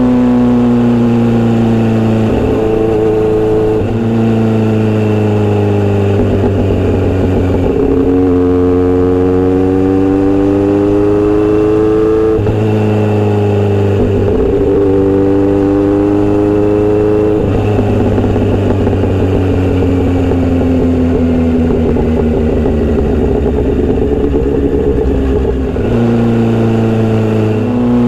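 Kawasaki Z900RS inline-four running through a Misty Kintaro short steel exhaust while riding, the engine note rising and falling slowly with the throttle. The pitch changes abruptly several times as the rider shifts gears.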